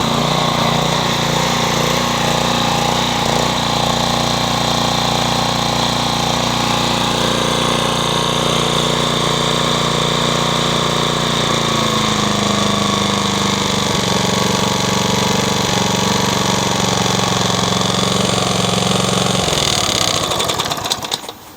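Toro Super Recycler lawn mower engine running steadily, its pitch dropping slightly about halfway through, then shut off near the end and winding down to a stop. It is running after a blade-clutch repair in which a pulley with a disintegrated bearing was replaced.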